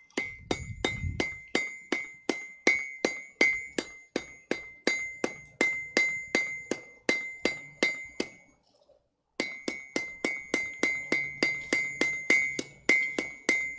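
Blacksmith's hammer striking hot iron on an anvil in a steady rhythm of about three blows a second, each blow ringing at the same bright pitch. The hammering breaks off for a moment about nine seconds in and resumes. This is the hammering that sets a forge weld.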